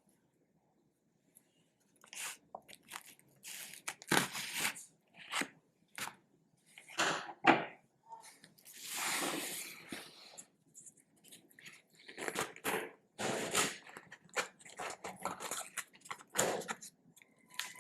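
Packaging of a daily planner being handled and opened by hand: irregular crinkling, crackling and tearing, with one longer drawn-out rustle about nine seconds in.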